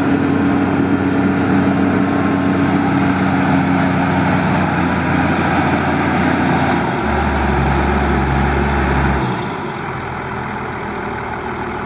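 White 6195 Workhorse tractor's diesel engine running steadily as the tractor drives and turns. Its note shifts partway through, and it becomes quieter about nine seconds in.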